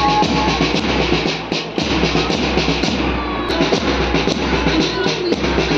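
Loud background music with a steady beat and drums.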